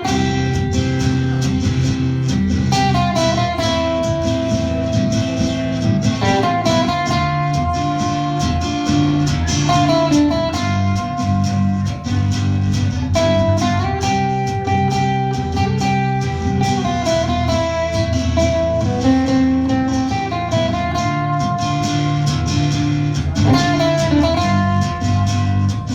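Live acoustic band playing an instrumental guitar intro: steady chords underneath a sustained higher melody line that slides and bends between notes.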